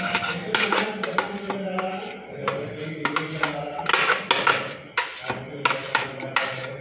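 Kitchenware being handled on a counter: a glass jar and a steel cup knocking and clinking in scattered light taps, with a brief scraping stretch around the middle.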